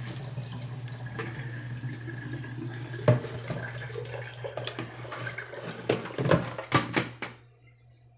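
Water running and draining through a plastic colander into a stainless steel sink, with several sharp knocks in the second half as the colander is handled. The water sound stops shortly before the end.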